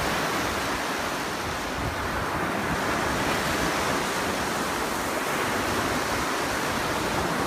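Lake Superior waves breaking on a sand and pebble beach: a steady, continuous rush of surf.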